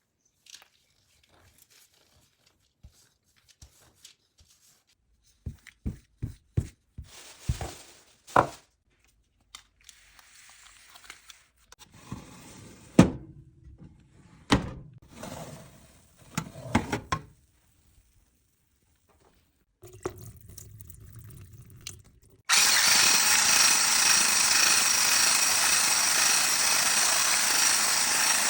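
Kitchen handling sounds, with knocks and clicks of utensils and bowls, then about three quarters of the way in a small electric kitchen appliance motor switches on suddenly and runs steadily and loudly.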